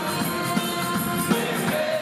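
Mixed choir of men and women singing a Tigrinya church hymn (mezmur), holding long notes, with percussion keeping a beat underneath.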